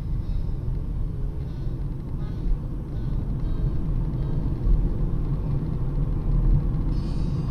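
Steady low rumble of a car driving along a city road, its engine and tyre noise picked up by a windscreen dashcam inside the cabin.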